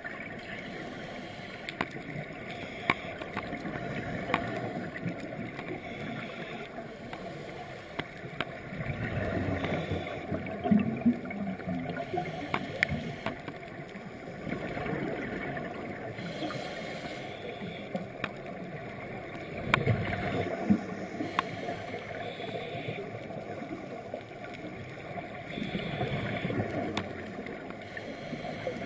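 Scuba divers' exhaled air bubbling and gurgling past an underwater camera housing, a muffled steady wash that swells louder a few times, with scattered sharp clicks.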